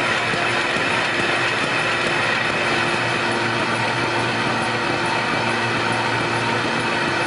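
Kirk-Rudy mail-processing machine running, its belt conveyors and feed mechanisms carrying printed mail pieces with a steady mechanical whir and a constant low hum.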